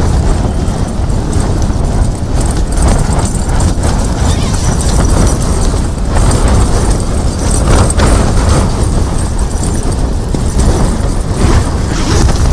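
Strong wind buffeting a tent, heard from inside: the fabric flaps and snaps against a constant loud rush, with wind blasting on the microphone.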